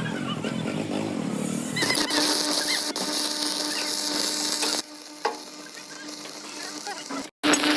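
Stick-welding arc crackling and sizzling, starting about two seconds in over a steady low hum, then dropping in level near the middle before cutting off briefly near the end.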